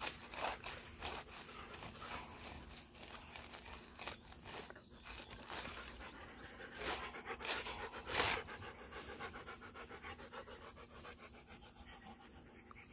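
A dog panting steadily, about two breaths a second, faintly.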